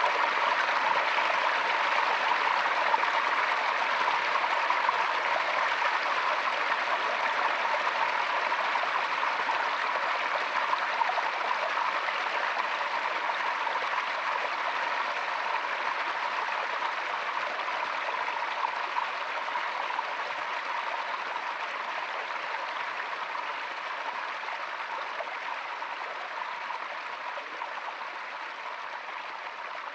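Forest stream running with a steady rush of water, gradually fading quieter.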